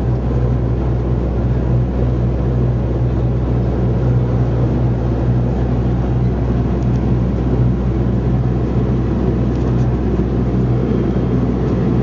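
Steady drone of an airliner in flight heard inside the passenger cabin: engine and airflow noise with a strong, unchanging deep hum.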